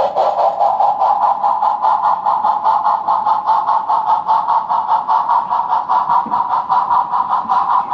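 O scale model steam locomotive's sound chuffing rapidly and steadily, about six exhaust beats a second, over a continuous pitched hum as it pulls a string of empty log cars.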